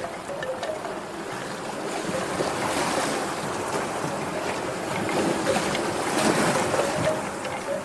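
Ocean waves washing in, a steady surf that swells twice, about three seconds in and again near the end.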